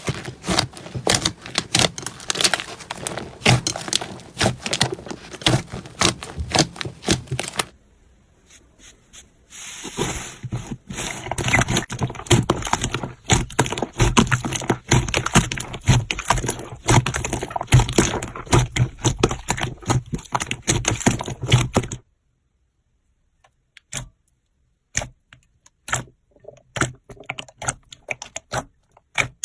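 Slime being squeezed and poked by hand, giving rapid clicks and pops. The clicking breaks off for about two seconds around eight seconds in, then resumes. About 22 seconds in it cuts off, leaving only a few scattered clicks.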